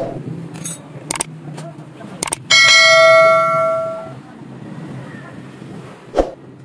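Bell-chime sound effect with a click, as used for a subscribe-and-notification animation: a sharp click about two seconds in, then a bright bell ring that starts abruptly and fades over about a second and a half. A few lighter knocks come from the plastic air-filter housing and a screwdriver being fitted to the engine.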